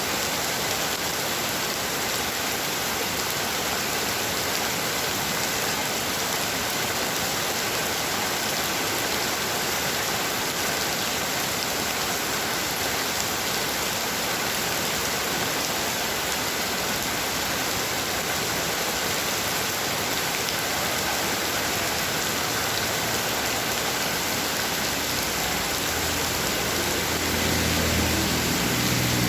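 Heavy rain falling with a steady, dense hiss. Near the end a low rumble builds underneath it.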